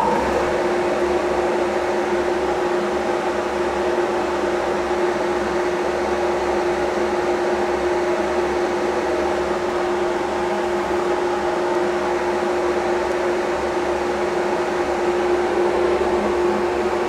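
Delta 50-850 1.5 hp single-stage dust collector running steadily just after being switched on: an even hum with one constant tone over the rush of air through the impeller.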